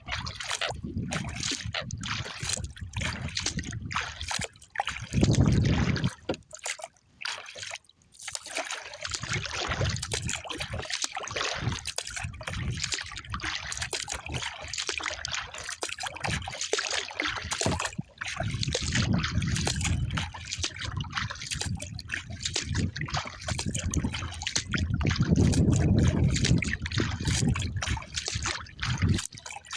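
Water trickling and sloshing around a paddled kayak, with wind gusting on the microphone as a low rumble about five seconds in and again near the end.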